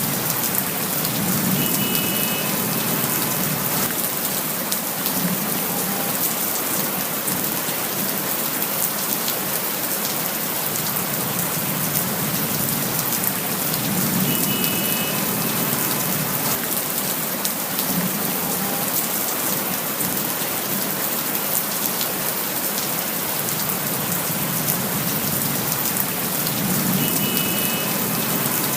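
Steady rain falling on surfaces, a dense even hiss full of small drop impacts. A faint short high tone sounds three times, about twelve seconds apart.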